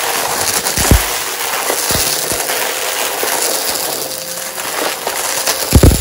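Vacuum cleaner running with a steady motor whine and rushing air, while bits of dry debris click and knock through it as they are sucked up. A quick cluster of sharp knocks comes near the end.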